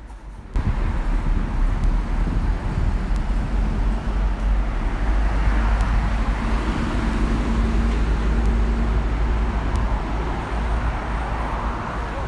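City street traffic: a steady wash of engine and tyre noise with a heavy low rumble and a faint steady engine hum. It starts abruptly about half a second in.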